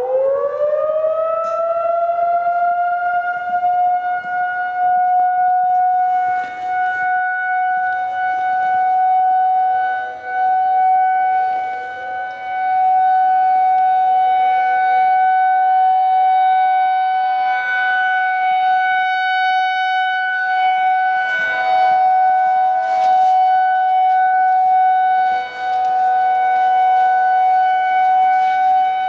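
Federal Signal 2001-130 rotating outdoor warning siren winding up to full pitch in the first couple of seconds, then sounding a steady alert tone whose loudness swells and dips as the horn rotates. Other 2001 sirens can be heard farther off, a slightly lower steady tone joining about two-thirds of the way in.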